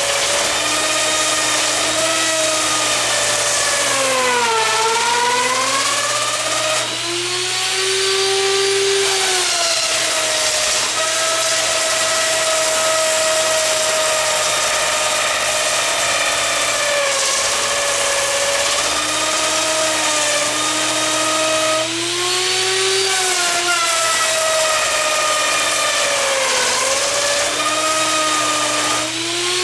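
Wood router cutting into a spinning wooden blank on a homemade router lathe, its whine dropping in pitch several times as the bit bites under load and then climbing back, over a steady low motor hum.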